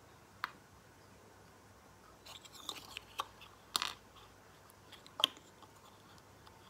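Small plastic clicks and faint handling rustles as Lego minifigure pieces are pressed and fitted together by hand. A few short sharp clicks come about half a second in, a quick cluster a little after two seconds, and stronger ones near four and five seconds.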